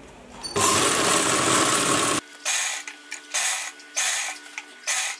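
Black straight-stitch sewing machine stitching a folded hem. It runs without a break for about a second and a half, starting about half a second in, then stitches in four short bursts.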